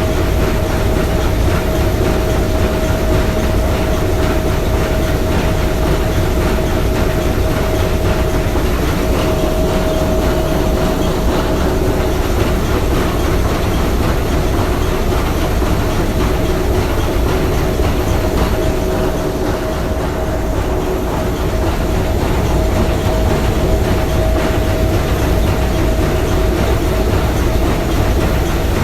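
Three-cylinder triple-expansion marine steam engine running steadily: a continuous mechanical clatter with a steady whine running through it.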